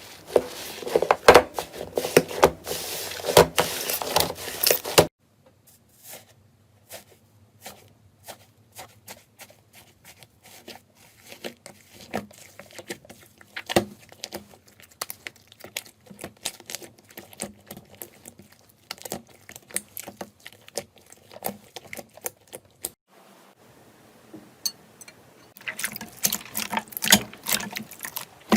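Slime being squeezed and poked by hand, giving sticky clicks, crackles and pops. Dense and loud for the first few seconds, then sparser and quieter, and dense again near the end.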